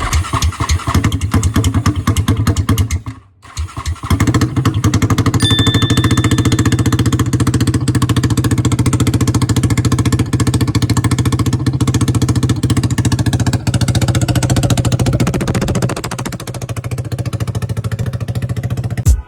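Yamaha Raptor 700R ATV's single-cylinder four-stroke engine running hard. It drops out briefly about three seconds in, then holds steady high revs and eases off slightly near the end.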